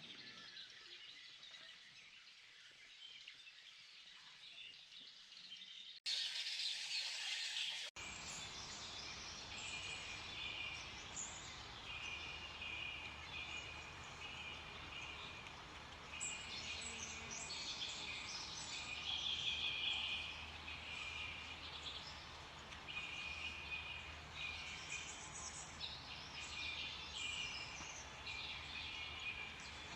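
AI-generated outdoor ambience: bird chirps repeating over a steady background of hiss and low hum. It opens with a quieter haze, then a louder noisy patch breaks in about six seconds in and cuts off abruptly two seconds later, before the birdsong bed takes over.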